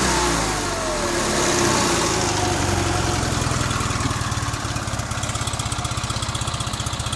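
Freshly rebuilt Fiat 126 BIS water-cooled flat-twin engine. Its revs fall away after a throttle blip at the start, and it then settles into a steady, evenly pulsing idle.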